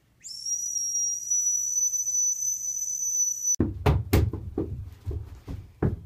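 Adjustable dog whistle blown in one long, steady, high-pitched whistle for about three and a half seconds, sliding up in pitch as it starts. It cuts off abruptly, followed by a run of irregular knocks and thumps from a person scrambling on all fours across the floor.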